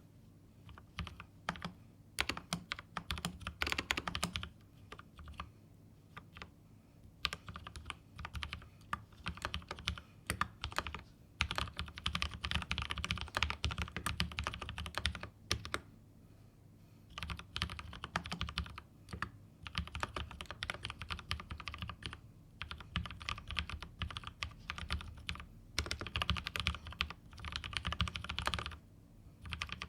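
Typing on a mechanical keyboard with Holy Razer frankenswitches (Halo True stems in lubed Kailh Razer Green housings) under GMK Honeywell keycaps. The keystrokes come in fast runs of clacks separated by brief pauses.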